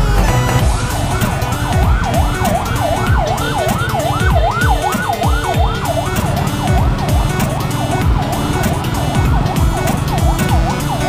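A siren yelping: quick rising-and-falling wails, about three a second, loudest in the first half and then fading.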